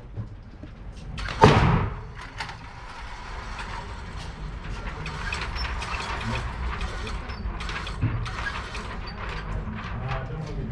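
A single pistol shot about a second and a half in, followed by a steady mechanical rattling with many small clicks.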